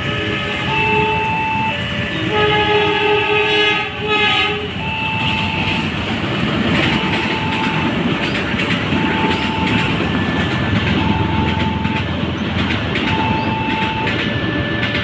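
Railway level-crossing warning bell ringing in a steady repeating pattern of alternating tones, about one a second. A train horn sounds for about two seconds a couple of seconds in, then the train passes over the crossing with a loud rumble and wheel clatter while the bell keeps ringing.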